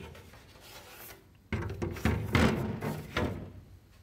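Plastic casing panels of a portable air conditioner being handled, rubbing and scraping against each other. There is a brief knock and a light rub at first, then a louder stretch of scraping in several strokes from about halfway through.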